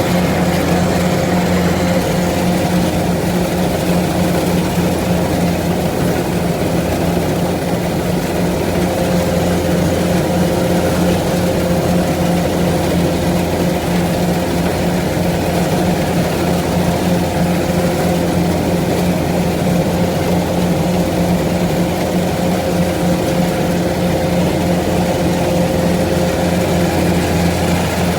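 Engine of a farm machine running steadily at a constant speed, with an even drone that does not rise or fall.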